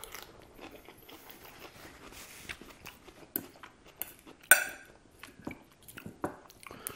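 Chewing of iceberg-lettuce salad with soft crunches, and a metal fork spearing the salad and clinking on the plate in small scattered clicks. One sharp, ringing clink of fork on plate about four and a half seconds in is the loudest sound.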